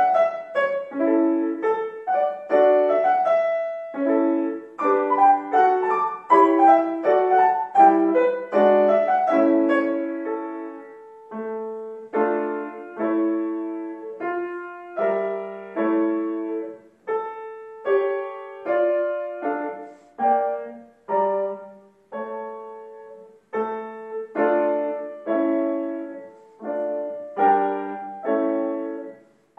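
Grand piano played solo: a melody over chords, in phrases with short breaks between them. The first third is busier and louder, and the rest is sparser.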